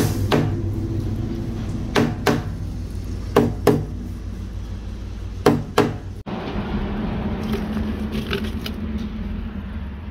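Cleaver chopping raw beef on a wooden chopping board: about seven hard chops, mostly in quick pairs a couple of seconds apart. After about six seconds the chopping stops, leaving only steady low background noise with a few faint ticks.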